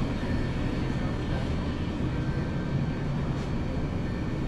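Supermarket interior ambience: a steady low rumble and hum of the store's background noise, with a few faint thin steady tones.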